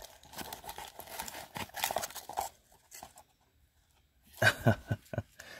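Plastic crinkling and rustling with small clicks as trading cards in plastic sleeves, top loaders and bags are handled. A pause of nearly two seconds follows, then a louder burst of handling noise near the end.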